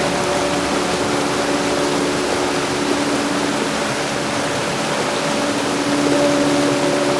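Heavy rain falling in a steady hiss, with faint sustained tones underneath.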